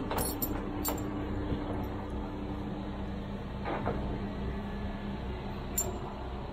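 Diesel engine of a Caterpillar telehandler running steadily at low revs as the machine backs away, with a few sharp clinks and knocks near the start, about halfway through and near the end.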